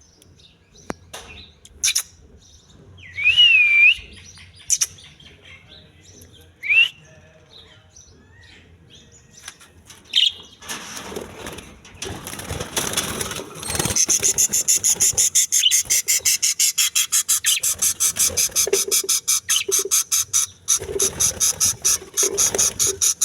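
Newly hatched parrot chicks calling: a few scattered whistled calls, then from about halfway a fast, steady run of high chirps, about four or five a second.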